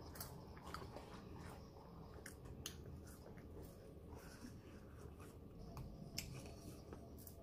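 Faint eating sounds: scattered small clicks and crinkles of hands on a cardboard burger box and fries, and chewing of a fast-food burger and fries, over a low room hum.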